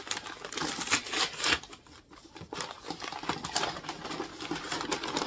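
Brown kraft wrapping paper rustling and crinkling as it is pulled open by hand, in quick irregular crackles with a brief lull about two seconds in.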